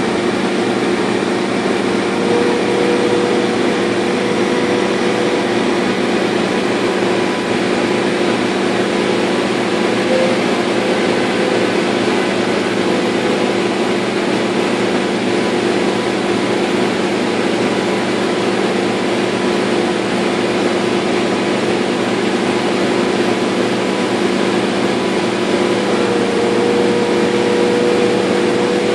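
Laser cutter running as it cuts through half-inch birch plywood: a steady mechanical hum with a few held tones, one of which wavers slightly now and then.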